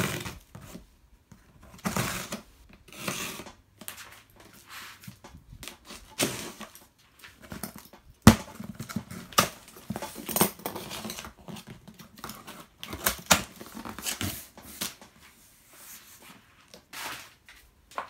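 Scissors slitting the packing tape on a cardboard box and the cardboard flaps being pulled open: a series of short scraping and tearing sounds, with a sharp knock about eight seconds in.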